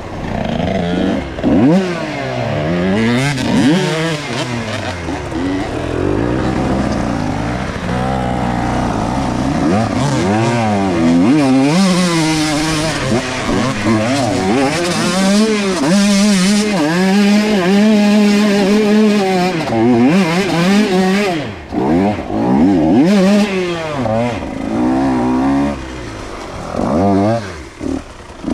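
125cc two-stroke dirt bike engine run hard on a trail, its pitch climbing and falling over and over as the throttle is opened and shut through the gears. For a few seconds past the middle it holds a steady high pitch, and near the end it briefly drops off twice.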